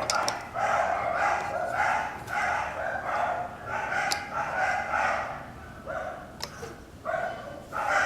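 A dog barking over and over, about two barks a second, easing off briefly near the end.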